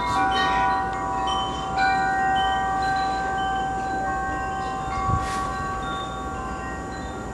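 Electronic chime melody from the Graco Glider LX swing's built-in music unit: bright bell-like notes that ring on and overlap. A single knock of handling comes about five seconds in.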